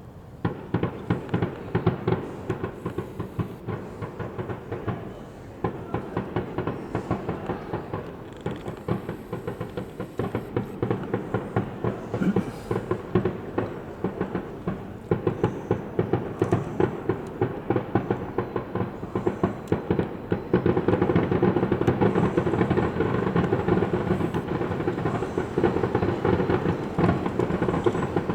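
Fireworks display: a rapid, unbroken string of bangs and crackles, several a second, which grows denser and louder about twenty seconds in.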